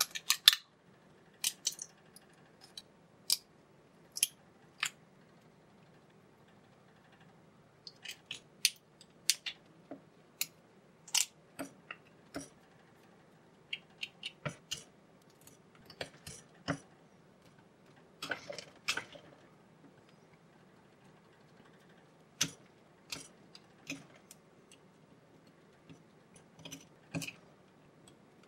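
Irregular sharp snaps and clicks as excess support plastic is cut and broken off a 3D-printed part, with a short scratchy patch about two-thirds of the way through.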